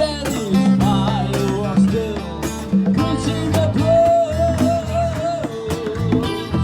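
Live acoustic band playing: strummed guitar over stepping low notes with a steady beat, and a sliding, wavering melody line carrying the tune.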